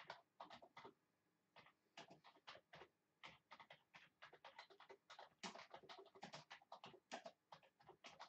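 Near silence with faint, irregular ticks and rustles, several a second.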